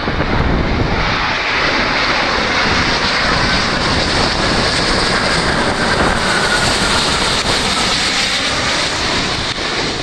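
Airbus A350-1000's Rolls-Royce Trent XWB-97 turbofans on final approach, passing low overhead: a loud, steady jet rush with a high whine that drops in pitch as the aircraft goes by.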